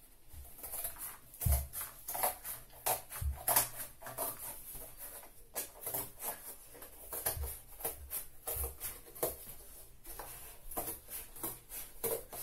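Scissors cutting through cardboard: a run of short, irregular snips and crunches, a few per second.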